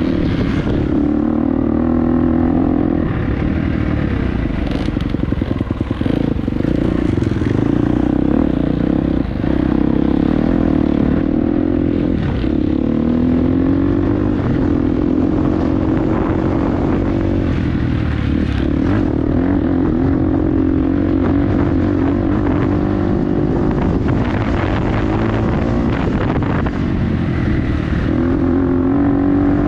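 Dirt bike engine under way on a trail, its revs rising and falling again and again as the rider works the throttle and gears, with short drops in engine sound now and then.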